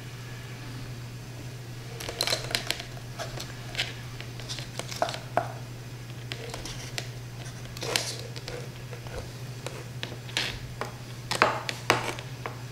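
Hands handling a scored mango cheek and a cooked lobster shell on a wooden board: scattered soft squishes, light clicks and scrapes, the sharpest clicks near the end, over a steady low hum.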